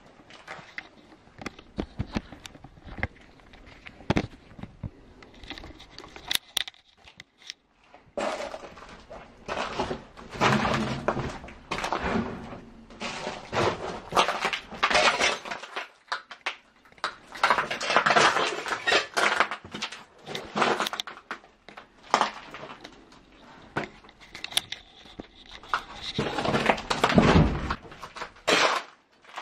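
Footsteps and the crunch, rustle and knock of debris being stepped on and pushed aside: scattered clicks at first, then denser scraping and crunching, with a heavy low thump near the end.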